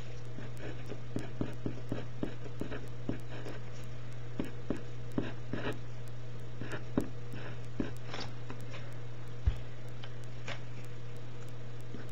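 Pen writing on paper: short, faint scratches and taps of the strokes over a steady low hum, with one dull thump about nine and a half seconds in.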